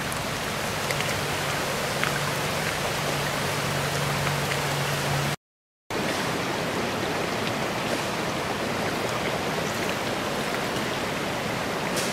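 Storm runoff water rushing steadily down a fresh diversion trench, with rain. A low steady hum sits under it for the first five seconds, and the sound breaks off in a short gap of silence about halfway through.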